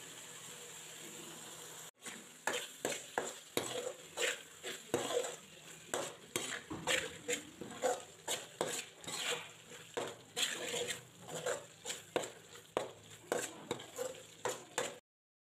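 Spoon stirring and scraping a thick onion-tomato masala around a metal pan, about two strokes a second, starting about two seconds in. Underneath is the steady sizzle of the masala frying.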